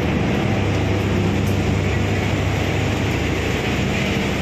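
Rotary wagon tippler running, turning an emptied coal wagon back upright onto the rails: a steady low machine hum under an even industrial din.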